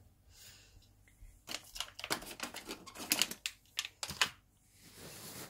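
A quick, irregular run of light clicks and clatters for about three seconds, starting about a second and a half in, followed by a soft brief hiss near the end.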